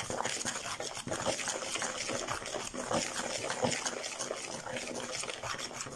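Table knife scraping and clicking against a mixing bowl as it works milk into a crumbly flour-and-fat mixture to bring pastry dough together: a steady run of small scrapes and taps.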